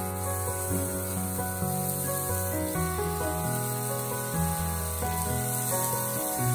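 Thin slices of beef sizzling on the hot plate of an Iwatani smokeless tabletop grill, a steady hiss that starts as the first slices go down, under background music.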